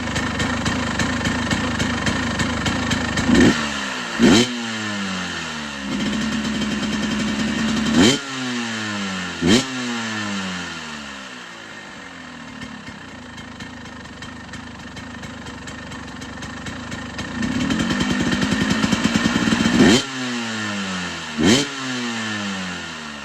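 1998 KTM EXC 250 two-stroke dirt bike engine idling and being blipped: three pairs of quick throttle blips, each dropping straight back down, with two spells of revs held a little above idle between them. The rebuilt engine is running right.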